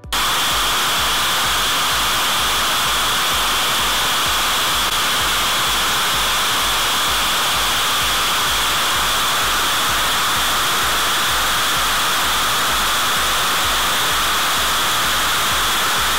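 Loud, steady hiss of a noise test signal from a phone app, played through two 6.5-inch car audio speakers on an amplifier's high-pass crossover; it cuts in suddenly and holds unchanged.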